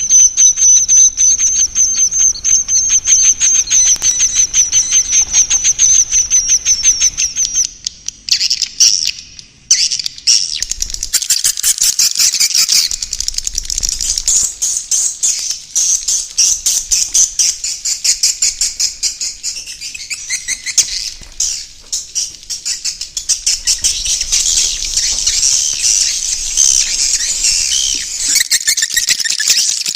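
Swiftlet calls: the roosting ('inap') call of edible-nest swiftlets, a dense run of rapid high-pitched chirps and twitters. It opens with a steady high buzzing trill, breaks off briefly about eight to ten seconds in, then carries on as continuous overlapping twittering.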